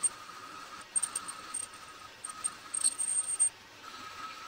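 Light metallic clicks and clinks, a few each second, like small steel parts being handled, over a faint steady high tone.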